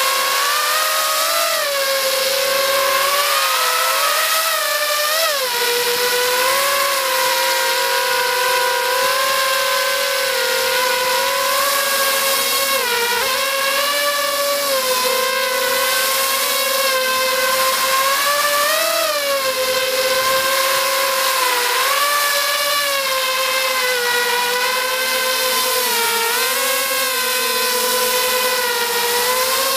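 FPV racing quadcopter's brushless motors and propellers whining steadily. The pitch rises and falls as the throttle changes, with one sharp swoop up and down about five seconds in.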